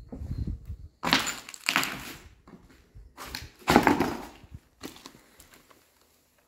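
Footsteps crunching and scraping over broken plaster and debris on a floor, in two louder spells, fading out about six seconds in.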